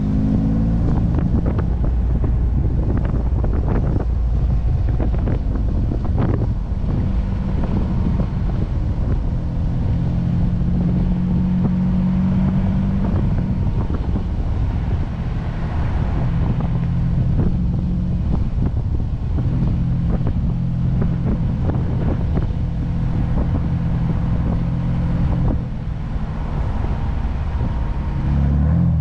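Ford Bronco engine running at a low, fairly steady speed on a rough off-road trail, its pitch shifting now and then with the throttle, with frequent knocks and rattles from the body and suspension over the bumps.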